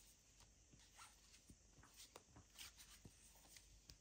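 Near silence with faint, scattered clicks and soft rustles of tarot cards being handled.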